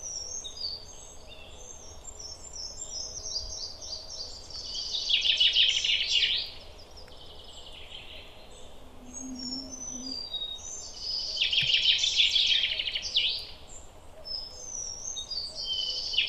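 Several songbirds singing, with short high chirps throughout. Every six seconds or so, one bird sings a loud, rapid trilled phrase lasting about a second and a half.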